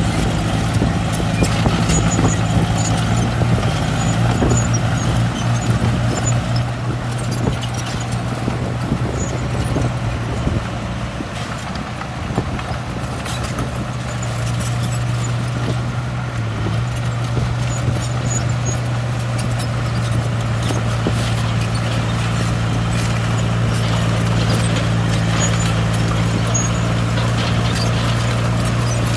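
A heavy construction machine's diesel engine running steadily, with a repeated metallic clanking and knocking over it. The engine drops a little in level partway through, then picks up again.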